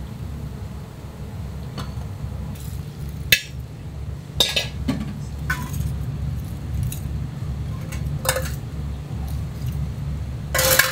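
Dishes and utensils clinking and clattering in a ramen shop kitchen: scattered sharp knocks, the sharpest about a third of the way in and a longer clatter at the end, over a steady low hum.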